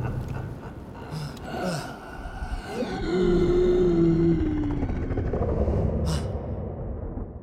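Animated-film sound effect of a deep, drawn-out monstrous roar, falling slightly in pitch, over a low rumble.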